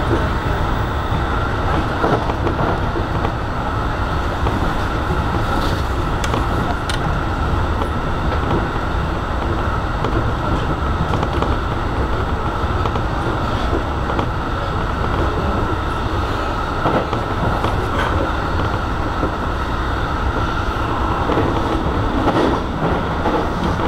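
E233-series electric commuter train running at speed, heard from inside the front car: a steady rumble of wheels on rail, with a few faint clicks.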